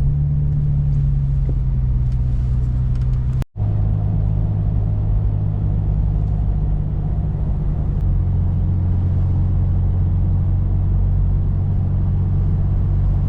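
Toyota FJ Cruiser's V6 engine and road noise while driving, a steady low hum. It cuts out for an instant about three and a half seconds in, and its pitch steps lower after that.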